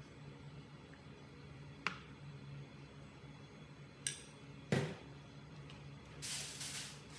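Kitchen handling sounds over a steady low hum: a light click about two seconds in, two sharper knocks or clinks at about four and five seconds (the second the loudest), then a brief rustling hiss near the end.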